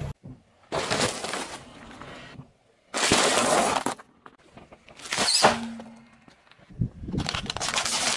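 Dry, brittle things cracking and crunching as a car tyre rolls over them, among them rigatoni pasta and wafer ice-cream cones. Four separate bursts of crunching about a second each, with short silent gaps between.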